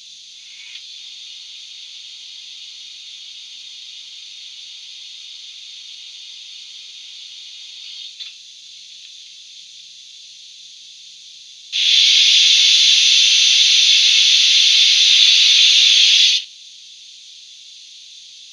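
Wheeltappers DCC sound decoder in a Model Rail J70 tram locomotive, playing a steam engine at rest through a sugarcube speaker: a steady, thin hiss of simmering steam with no low end. About twelve seconds in, a much louder blast of steam hiss starts, lasting about five seconds and cutting off sharply.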